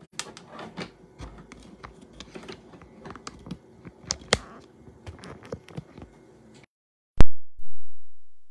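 Small clicks and taps of audio gear being handled while the sound is switched over to an iRig interface; the feed cuts out abruptly, then a loud pop with a low rumble that fades over a second or so.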